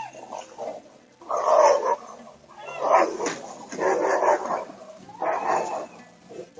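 Two dogs fighting, barking in about four loud, harsh outbursts roughly a second apart, with a short high yelp right at the start, heard through a doorbell camera's microphone.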